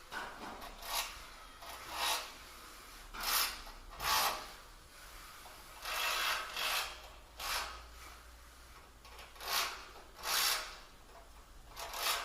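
A string of short, faint rubbing and scraping noises, about ten in all, from generator parts being handled during an ignition coil swap.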